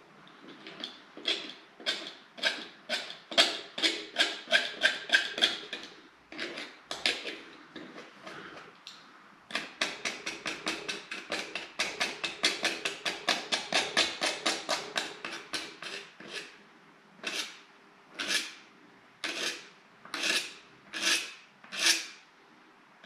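Small hand knife scraping and trimming the edge of a laminated chipboard furniture panel at its inside corner, in runs of quick short strokes, about four or five a second, then slower single strokes about once a second near the end.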